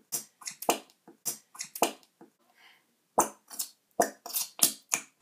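Glitter glue squeezed out of its bottle, spluttering with weird sounds as air bubbles burst through the glue in short irregular pops. There is a brief lull about two seconds in, then a quicker run of pops.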